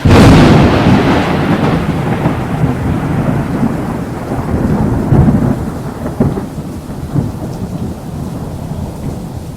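A sharp, loud thunderclap that breaks suddenly and rolls on as a long rumble, fading slowly, with a couple of further swells about five and six seconds in, over steady rain.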